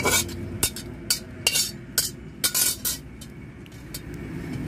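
A metal spoon scraping and knocking against a metal cooking pot in short, sharp strokes, about two a second, as boiled taro stems are pushed out into a plastic colander.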